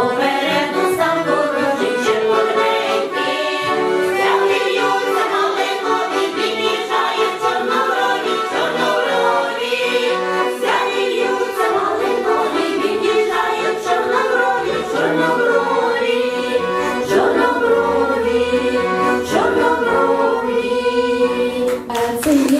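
Women's folk choir singing together, accompanied by a piano accordion.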